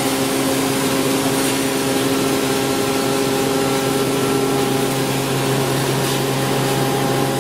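Hammer mill with its blower and cyclone running steadily: a constant machine hum of several steady tones under a loud rushing of air.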